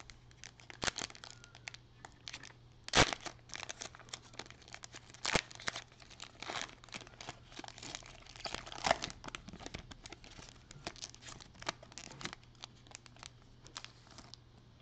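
Foil wrappers of Panini Prizm trading-card packs crinkling and tearing as they are ripped open by hand. Irregular crackles run throughout, the sharpest about three seconds in.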